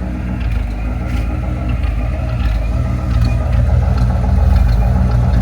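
1979 Ford F100's 302 V8 idling rough and choppy, the idle speed uneven. The owner suspects vacuum leaks, an aftermarket carburettor and ignition timing that is probably off.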